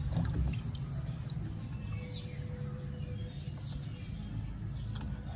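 Birds chirping faintly over a steady low rumble, with a couple of light clicks near the end as a knife cuts calamansi over a metal strainer.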